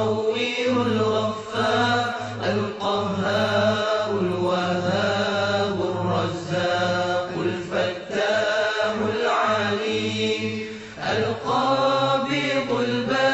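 Arabic devotional chanting: a voice sustains long, wavering melodic phrases over a steady low drone, with a short break about ten seconds in.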